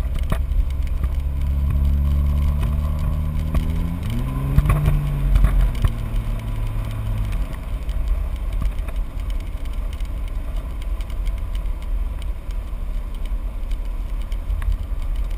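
Straight-piped Cummins inline-six turbo-diesel of a Dodge Ram 2500 running under way, heard from inside the cab: a deep exhaust rumble whose tone climbs for the first four seconds, bends up and back down, and fades out about seven seconds in. A steady low rumble and road noise carry on after it.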